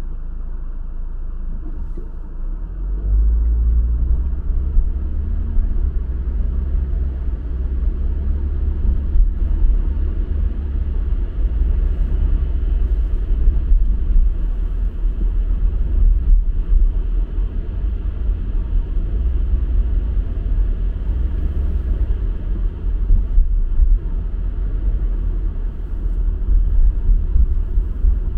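Car driving: a steady low rumble of road and engine noise, which grows louder about three seconds in.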